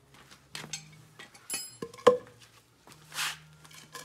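Metal tools and motorcycle parts clinking and tapping, with one sharp ringing metallic clink about two seconds in and a short hiss a little after three seconds.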